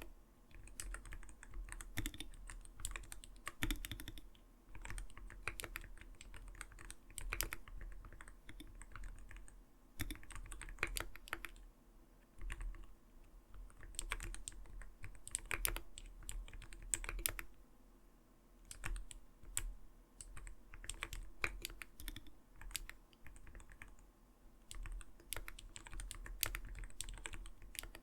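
Typing on an Arbiter Studio Polar 65 Phantom mechanical keyboard: a soft, deep clacking of keystrokes in uneven bursts with brief pauses between them.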